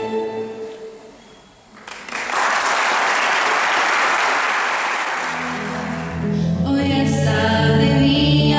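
Recorded music fades out, then an audience applauds for about four seconds. Near the end a live band with bass guitar, guitars and panpipes starts playing, its low bass notes coming in first.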